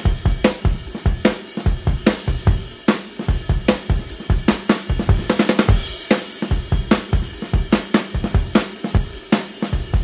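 Background music with a steady, fast drum beat.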